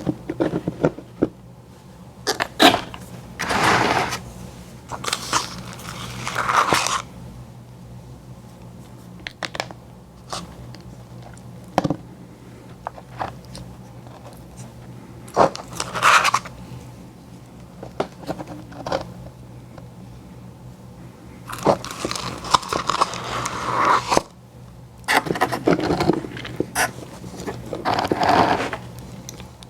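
Close-miked eating of ice cream treats: irregular bites and chewing with crunches and scraping sounds, spaced a few seconds apart, over a faint steady low hum.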